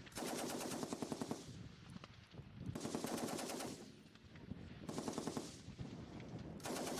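M60 7.62mm machine gun firing four short bursts of automatic fire, each lasting about a second, with echoing gaps between them.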